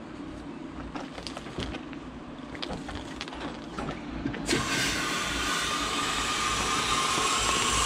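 A few light knocks as a car radiator is handled. About four and a half seconds in, a steady rush of hose water starts suddenly as the water is turned into the 1934 Ford radiator to flush it out, acorns and all.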